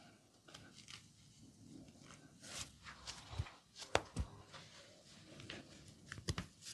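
Hands working over skin and hair during a massage: soft rubbing and scattered light taps, with one sharp click about four seconds in and a quick run of taps near the end.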